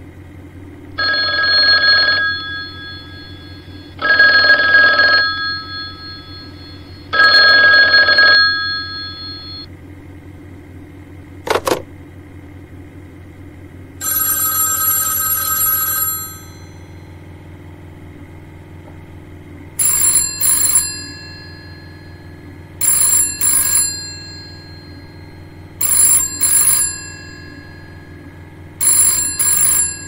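Old telephone bells ringing in several patterns: three single rings about three seconds apart, a sharp click, one longer, brighter ring, then a double ring (ring-ring) repeating about every three seconds.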